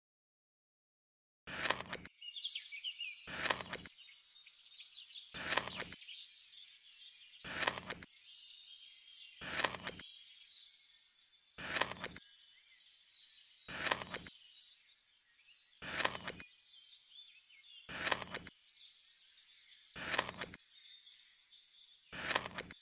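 Birds chirping continuously, cut across about every two seconds by a short, loud burst of noise that repeats at an even rhythm.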